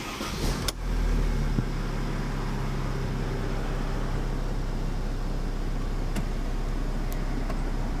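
Mercedes-Benz E350's V6 engine starting with a brief low surge about a second in, then idling steadily, heard from inside the cabin.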